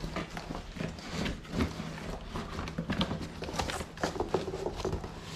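Cardboard shipping box being opened and handled: irregular rustling, scraping and light knocks.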